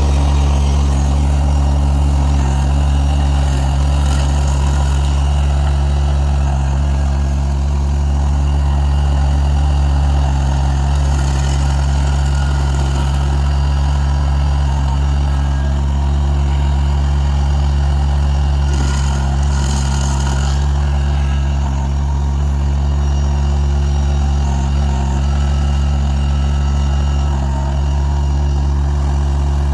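Kubota BX2350 compact tractor's three-cylinder diesel engine running steadily while driving a PTO stump grinder, with a brief rush of hiss twice, about ten and nineteen seconds in.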